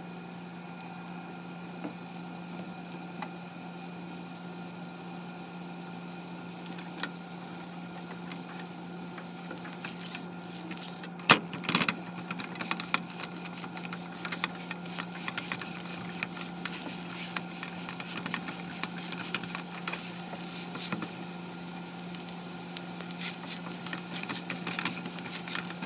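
Scallion pancake frying in oil in a nonstick pan: a light sizzle that turns into dense crackling and spitting from about eleven seconds in, when a spatula knocks against the pan and presses the pancake flat. A steady low hum runs underneath.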